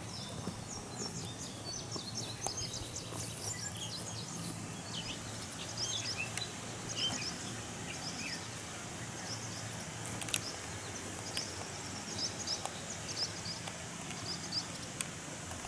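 Several small birds chirping on and off, short high calls scattered throughout, over a steady low hum, with a few faint clicks.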